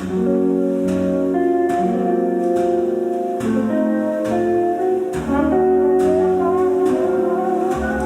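Background music: a mellow, jazzy instrumental track with sustained chords and soft ticking percussion.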